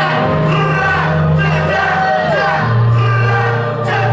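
Live hip-hop music played loud through a club sound system: a deep, sustained bass line that steps between notes, vocals over it, and a regular crisp hi-hat tick.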